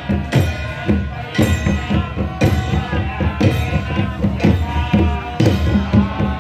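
Procession music: a strong drum beat about once a second with faster jingling percussion between, and chanting or singing voices over it.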